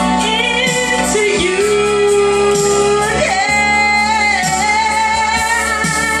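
A woman singing into a handheld microphone over instrumental accompaniment. She holds a long note with vibrato, then rises to a higher held, wavering note about three seconds in.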